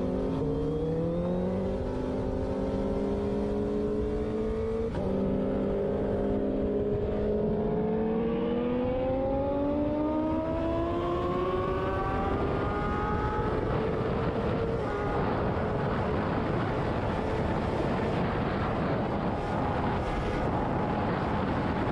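Yamaha motorcycle engine accelerating hard, its pitch climbing through the gears with upshifts about one and five seconds in. Past the middle the engine note levels off at high speed, under loud wind and road rush.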